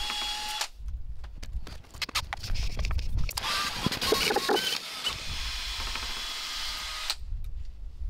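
DeWalt cordless drill spinning a dryer-vent cleaning brush on its rod inside the vent duct, to clear out lint. The motor runs in spells with rattling and knocking from the rod, then stops abruptly about seven seconds in.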